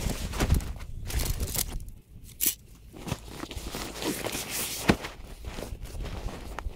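Canvas swag and carry bag being handled: heavy fabric rustling and dragging, with scattered knocks and thumps as the rolled swag is pulled from its bag and set down, and one sharp knock about five seconds in.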